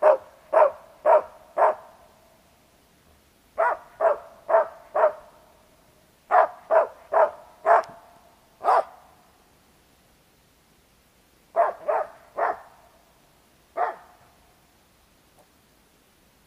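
Hunting dog barking up into a tree, in short runs of three or four sharp barks with pauses between, about seventeen barks in all: the dog is baying a treed squirrel to hold it and show the hunter where it is.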